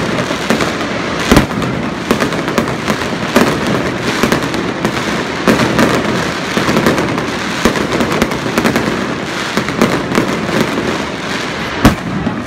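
Aerial fireworks going off: a dense, continuous crackling of many small pops from the bursting shells, with two louder bangs, one about a second and a half in and one near the end.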